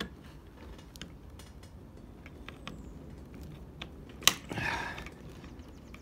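Phillips screwdriver turning a stiff screw into a car door latch and lock actuator assembly: faint scattered clicks and creaks, then a sharp click about four seconds in followed by a brief rasp. The new screw is tight and needs heavy pressure to keep the Phillips head from stripping.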